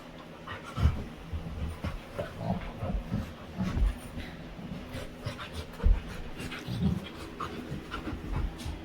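Labrador retriever panting, with a few dull low thumps.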